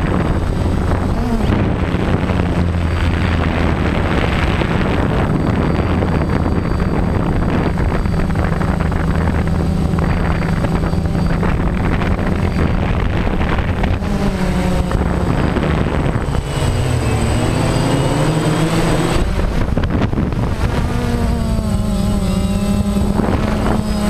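DJI Phantom quadcopter's motors and propellers humming steadily, heard from the GoPro mounted on the drone, with wind buffeting the microphone. The pitch shifts and glides several times in the second half as the motor speeds change.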